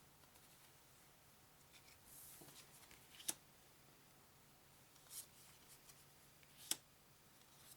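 Game cards being handled and set down on a table: a soft sliding sound about two seconds in, then a few sharp taps, the loudest about three seconds in and again near the end.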